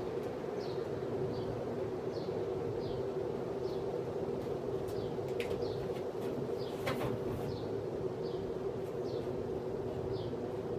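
1979 Envirofan 52-inch ceiling fan running at speed 2 (medium high) on its choke-coil speed control: a steady motor hum with air noise. A faint high chirp repeats about every three-quarters of a second, and a couple of soft clicks come around the middle.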